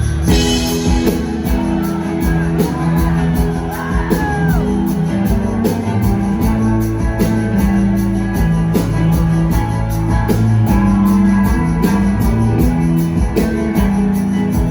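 Live rock band playing in a large hall: electric guitars and bass holding sustained notes over a steady drum beat, recorded from the audience.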